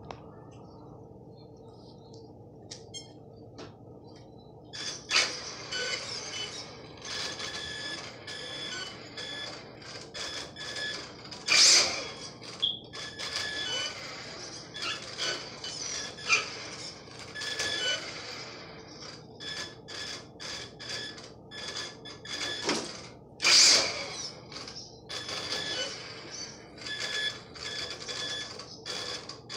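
HPI RS4 radio-controlled car driving on a tile floor: its motor and gears whine in many short throttle bursts starting about five seconds in, with two louder passes around twelve and twenty-three seconds in.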